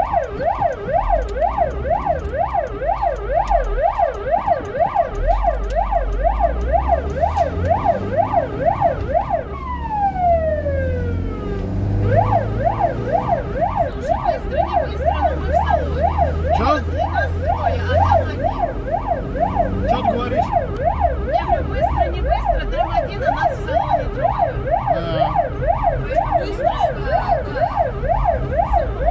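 Ambulance siren sounding a fast up-and-down wail, about two sweeps a second, heard from inside the ambulance's cab over its engine and road rumble. About ten seconds in it winds down in a falling tone, then starts up again a couple of seconds later.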